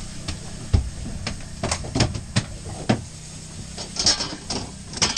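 Scattered knocks and clicks of handling on a fishing boat's deck over a low steady hum, with a couple of short hissing bursts near the end.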